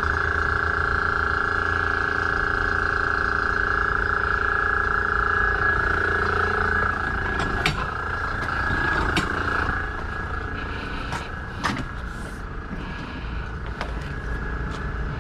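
High-pressure drain jetter's engine and pump running with a steady high whine. About seven seconds in the whine fades and the level drops, and a few sharp knocks follow.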